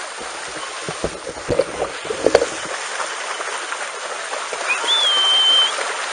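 Shallow pool water splashing and sloshing as several dogs wade through it, with a few sharp knocks a second or two in. About five seconds in, a short high-pitched call rises and then holds briefly.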